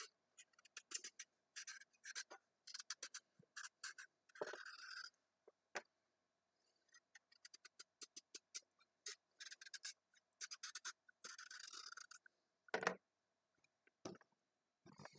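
Paring knife peeling a large raw carrot: quick, faint scraping strokes of the blade along the carrot, with a few longer scrapes. About three seconds from the end a sharper knock, the loudest sound, followed by another about a second later.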